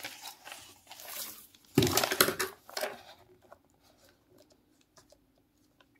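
Crinkling and rustling handling noise close to the microphone, loudest around two seconds in, then near silence.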